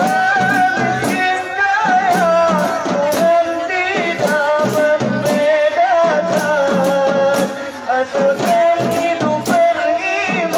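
Live gambus music from a men's rebana group: an ornamented, wavering melody line with singing, carried over a steady beat of rebana frame drums.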